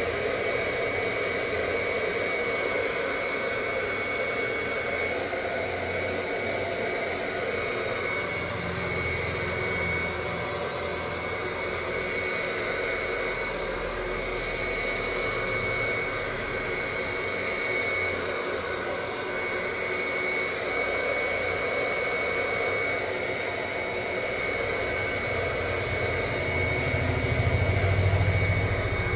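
Small handheld hair dryer running steadily, blowing air with a steady high whine from its motor, aimed at long hair.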